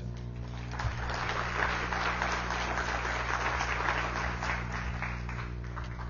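Audience applauding, rising about a second in and thinning out toward the end, with a steady low hum underneath.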